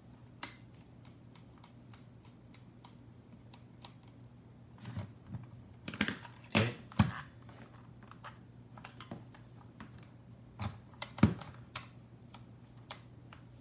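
Light clicks and taps of a screwdriver and fingers on the plastic case of a FrSky X-Lite radio transmitter as it is closed up and its screws are fitted, with louder clusters of knocks about five to seven seconds in and again about eleven seconds in.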